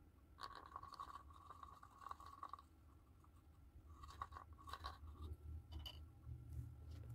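Small tube of craft glue being squeezed: faint crackling in two spells, the first lasting about two seconds from just after the start, the second about four seconds in. A single click follows near the end.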